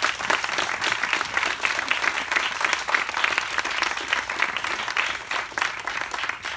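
Audience applauding: a dense, even patter of many hands clapping.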